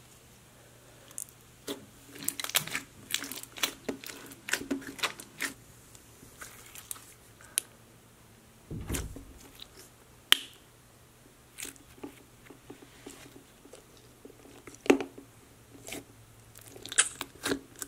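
Hands squishing and stretching a jelly-cube slime, giving quick runs of sticky wet pops and crackles, then scattered single pops, with one dull thump about nine seconds in.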